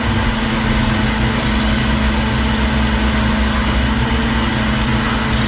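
Philips HR3652 high-speed blender, with its 1400-watt motor, running steadily at full speed while it blends a full jar of fruit juice. The whir is loud and even, with a constant hum underneath.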